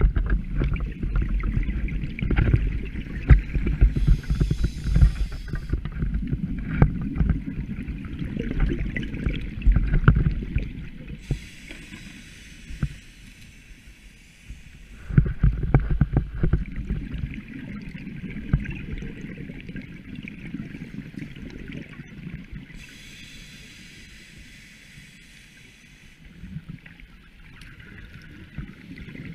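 Scuba diver breathing through a regulator underwater. Long spells of bubbling exhaled air alternate with three shorter hissing inhalations, and the breathing grows quieter in the last third.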